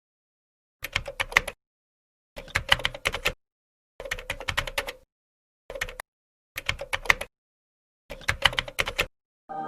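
Rapid typing clicks, like a computer keyboard, in six short runs with complete silence between them.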